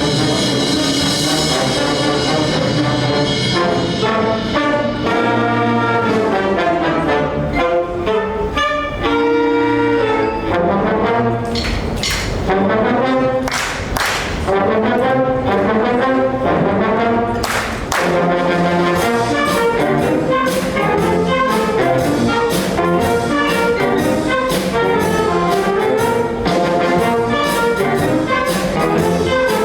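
High school symphonic wind band playing, with the brass section prominent over woodwinds. Two loud percussion strikes come a little before halfway, and a steady percussion beat runs through the second half.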